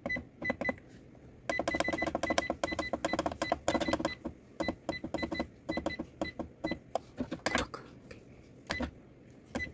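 Epson WF-2850 printer's control-panel button beeps with key clicks as the menu is scrolled. There is a fast run of many short beeps about a second and a half in, lasting a couple of seconds, then scattered single beeps.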